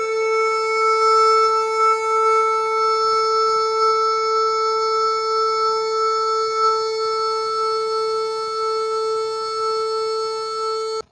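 Phu Thai pi, a bamboo free-reed pipe, holding one long steady note with a bright, buzzy tone. The note breaks off briefly right at the end.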